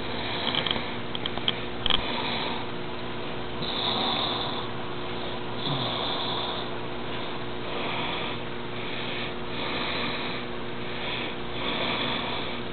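A person breathing close to the microphone, a breathy swell about every two seconds, over a steady low electrical hum. A few light clicks come in the first two seconds.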